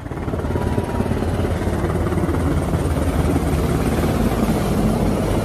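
Black Hawk helicopter in flight: a rapid, steady beat of rotor blades over a continuous rush of engine and air noise.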